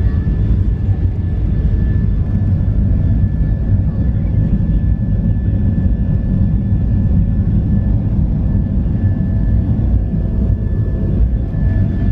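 Small passenger plane's engines running, heard from inside the cabin as a steady low rumble with a faint steady high whine above it.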